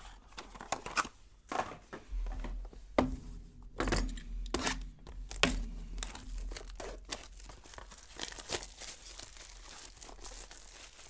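Trading-card box packaging being torn and crinkled open by hand: a run of tearing and crinkling with sharp knocks, busiest in the first six seconds and softer after.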